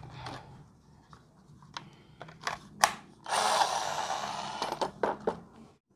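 A battery pack clicks onto a corded electric drill converted to run on an 18 V Makita battery, after a few lighter clicks of handling, then the drill motor runs with no load for about a second and a half and stops, followed by a few more clicks.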